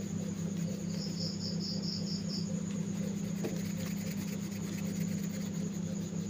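An insect chirping: one high trill of about seven quick, even pulses about a second in, over a steady low hum, with a faint click near the middle.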